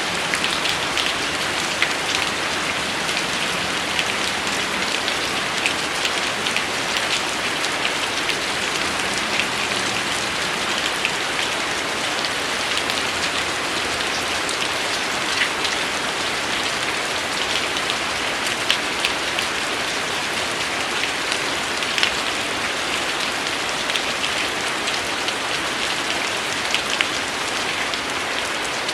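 Steady rain, a dense even hiss with many individual drops ticking sharply on a hard surface.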